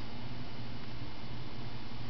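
Steady hiss with a low hum, unchanging throughout; no distinct sound stands out.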